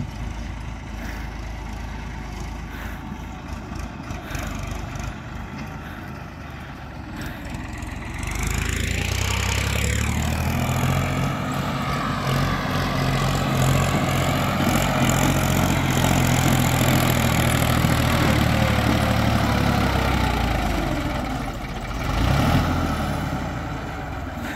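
New Holland 3230 tractor's three-cylinder diesel engine running as it tows a loaded trolley along a dirt track and up a slope. It grows louder about a third of the way in, surges briefly near the end, then eases off.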